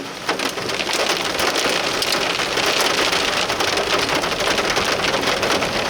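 Rain and hail pelting a vehicle during a severe thunderstorm: a loud, dense patter of many small impacts with no let-up.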